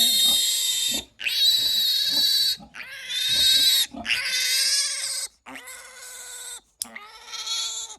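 Two-day-old piglet squealing while held for processing: about six long, high-pitched squeals in a row, each about a second, with short breaks between them.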